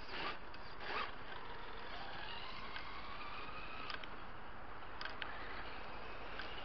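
HSP Brontosaurus electric RC monster truck driving off on a snowy road, its motor whining and rising in pitch as it picks up speed, with a few light clicks.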